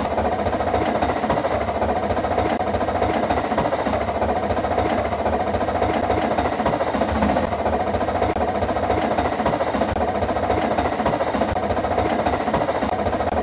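Narrow-gauge steam train running, a steady mechanical rumble with no distinct beats.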